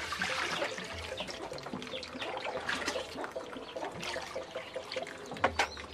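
Water pouring and trickling with small splashes, and two sharp knocks close together near the end.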